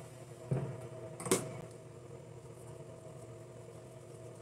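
Steady low mechanical hum of a running machine, with a soft knock about half a second in and one sharp click about a second and a half in.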